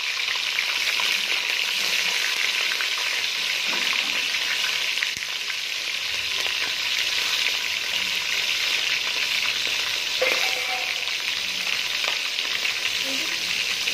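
Green chillies sizzling steadily in hot oil in an aluminium pot.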